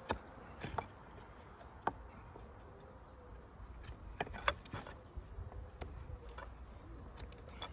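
Wooden beehive frame parts knocking and clicking as the side bars are handled and pushed into place. It is a scattering of light, sharp knocks, with a small cluster about four and a half seconds in.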